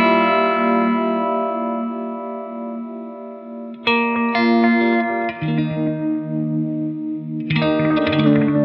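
Electric guitar, a Stratocaster-style guitar played through effects pedals, ringing out sustained chords. A chord struck just before the start decays slowly. A new chord is struck about four seconds in and moves to lower notes a second or so later. A few quicker picked notes follow near the end.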